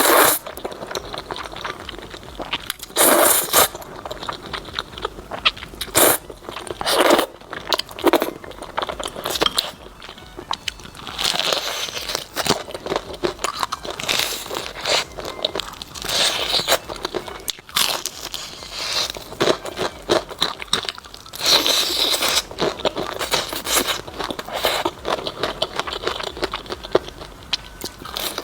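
Close-miked eating of crispy fried chicken: the breading crunches loudly in repeated bites, with chewing in between.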